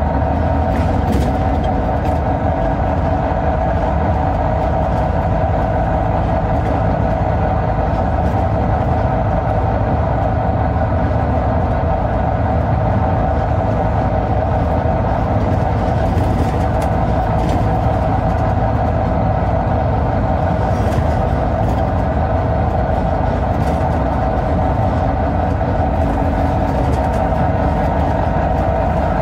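Volvo B9TL double-decker bus with its 9.4-litre Volvo D9B diesel running steadily under way, a constant engine note over a heavy low rumble with no marked gear change or change in speed.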